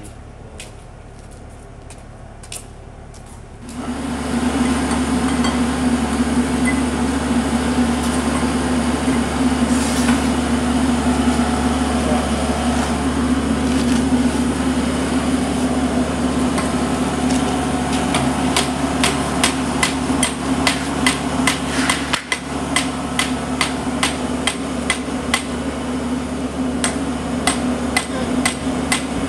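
A Kubota tractor's diesel engine running steadily, coming in suddenly about four seconds in, with a string of sharp knocks that come thicker through the second half.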